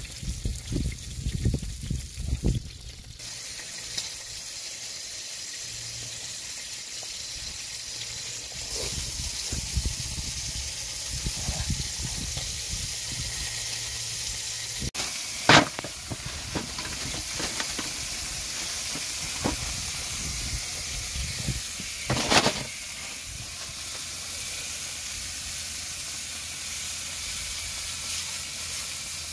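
Steak and tortilla frying in a skillet on a portable butane camp stove: a steady high sizzle, with two short loud spatters about halfway through and again a few seconds later. A few low knocks in the first seconds.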